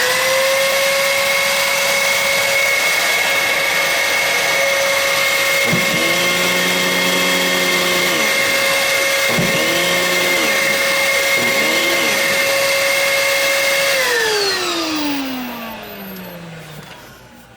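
Bissell 16N5 upright vacuum cleaner switched on, its motor spinning up quickly to a steady high whine, with the tone briefly changing three times in the middle. It is switched off about fourteen seconds in and the whine falls away as the motor coasts down. The vacuum is running normally after its repair.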